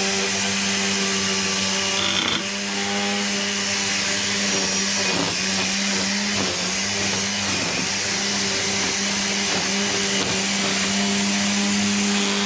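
DeWalt 20V MAX DCST922P1 brushless cordless string trimmer running on its high-speed setting: a steady motor and whirling-line whine. It dips briefly about two seconds in and a couple more times as the line cuts along the fence.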